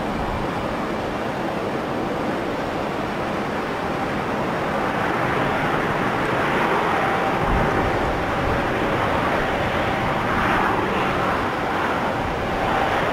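Boeing 737-800 jet engines during the landing rollout just after touchdown: a steady rushing roar that grows somewhat louder about five seconds in, with a faint steady whine coming through.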